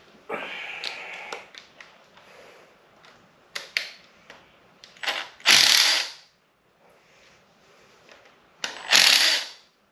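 Hand ratchet wrench working on the bolts of an LS engine's timing plate: a short spell of ratcheting near the start, a few sharp metal clinks, then two louder spells of ratcheting about three seconds apart.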